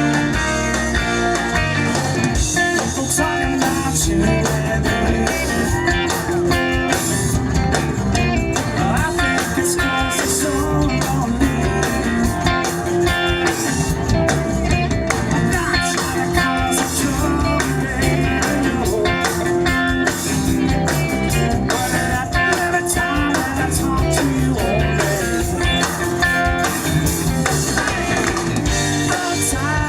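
Rock band playing a blues-tinged instrumental passage: guitar over bass and a steady drum beat, with no vocals.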